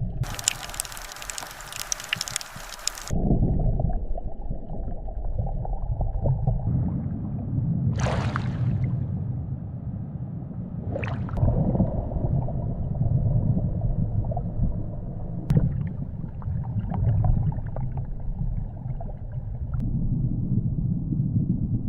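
Underwater ambience from a GoPro submerged in lake water: a continuous muffled low rumble and gurgling. A loud hissing burst of water noise lasts about the first three seconds, and two brief whooshes come at about eight and eleven seconds in.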